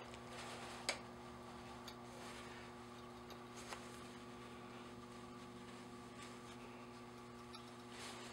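Faint, sparse clicks of a hand tap cutting a 1/4-20 thread into a threaded axle plug as the tap wrench is turned, over a steady low hum.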